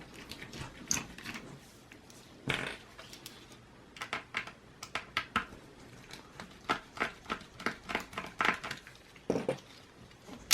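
Small metal-on-plastic clicks and taps as a mini Phillips screwdriver works the two screws out of a laptop's bottom cover, with a run of fairly even ticks several a second and a single louder knock early on.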